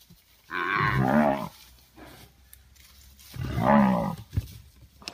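A lion roaring twice, each call about a second long and rising then falling in pitch, about three seconds apart.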